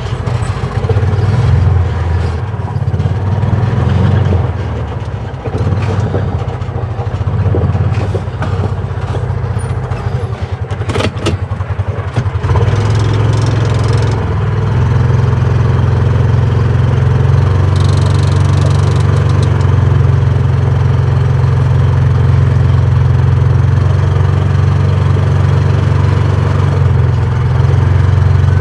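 Engine of the vehicle towing the wood chipper, running. It wavers with a few knocks and rattles in the first half, then settles into a steady, even run about halfway through.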